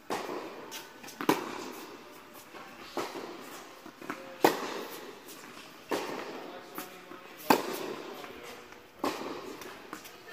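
Tennis ball struck back and forth by rackets in a groundstroke rally on an indoor court: a sharp hit about every second and a half, each ringing on in the hall's echo.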